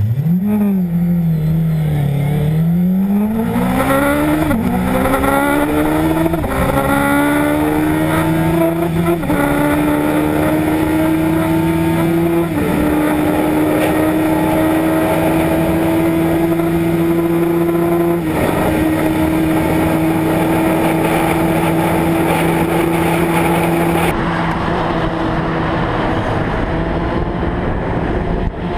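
Suzuki Hayabusa inline-four at full throttle on a top-speed run: the engine note climbs and drops at each upshift, about five shifts, each gear pulling longer. Heavy wind rush runs under it. Near the end it cuts abruptly to a different, noisier motorcycle recording.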